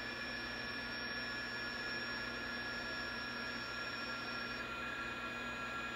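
Audio from a National NC-173 vacuum-tube shortwave receiver tuned to HF digital-mode signals: steady band hiss with a few thin steady tones, the highest of which stops about four and a half seconds in.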